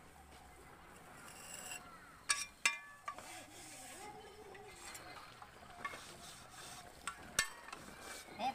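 Mason's trowel working cement mortar, scraping faintly. Two sharp, ringing metallic clinks come a little over two seconds in, and another comes near the end.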